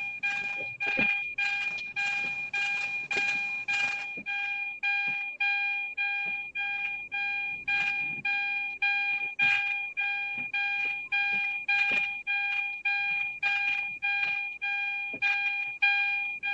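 A car's electronic warning chime repeating, just under two a second, each note striking and fading, with a few faint knocks under it.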